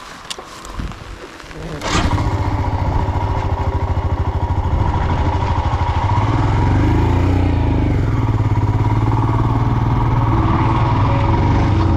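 Royal Enfield Himalayan's single-cylinder engine running with a steady rapid beat, cutting in abruptly about two seconds in after a few light knocks.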